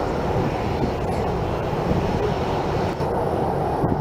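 The two CFM56-7B26 turbofan engines of a Boeing 737-800 running at high power during the takeoff roll: a loud, steady jet noise.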